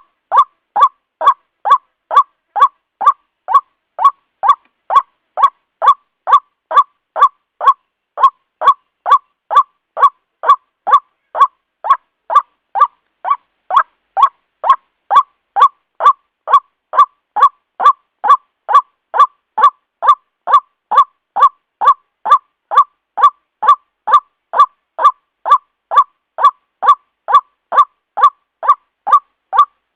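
White-breasted waterhen (ruak-ruak) calling: a short, sharp note repeated evenly about twice a second, every call alike in pitch and loudness.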